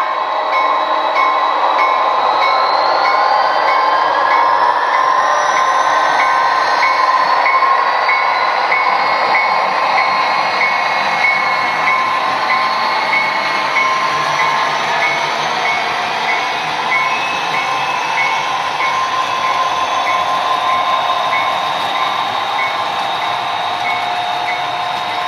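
HO-scale model diesel locomotives' sound decoders playing EMD diesel engine sound through small onboard speakers as the train passes, with a rising whine over the first several seconds and a short ring repeating about twice a second. The rolling noise of the model wheels and cars on the track runs underneath.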